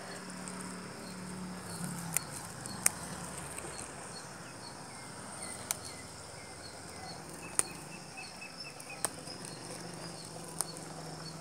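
Scissors snipping through mint stems: a series of sharp single clicks, roughly one every second and a half. A faint, regular high chirping runs behind them.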